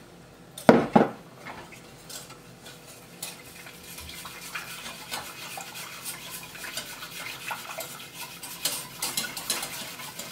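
Two knocks about a second in, then a wire whisk clicking and scraping against a stainless steel saucepan as it whisks water into butter, brown sugar and flour, the clicking busier near the end.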